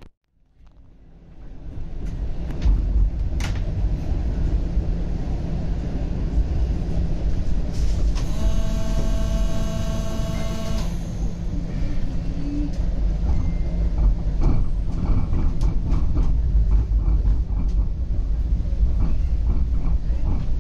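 Toronto streetcar running with a steady low rumble of wheels on the rails, rising in over the first two seconds. Near the middle a steady tone with several overtones sounds for about three seconds.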